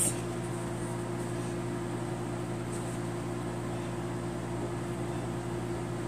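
Hamilton Beach microwave oven running mid-cycle, a steady, even hum near the end of a three-minute heating.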